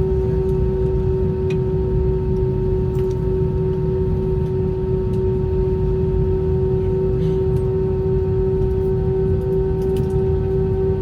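Airbus A320 cabin noise on the ground with the engines idling: a low rumble under a steady droning tone, with a few faint light rattles.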